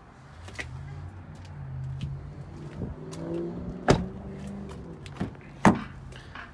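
Pickup truck doors: a sharp thud of a door shutting about four seconds in, then a second sharp click as the front door latch is opened, over a low steady hum.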